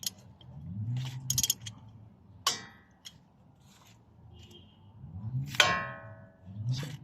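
Metal parts clinking as old brake pads are worked out of an opened disc-brake caliper and bracket, with scattered small clicks and two ringing metallic clangs, the second one near the end being the loudest.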